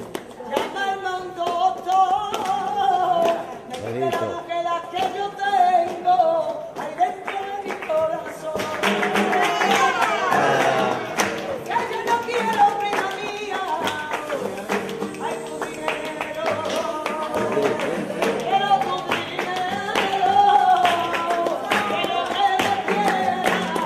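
Flamenco song with a singer's voice in long wavering phrases over guitar, with many sharp rhythmic strokes of hand clapping (palmas) and strumming.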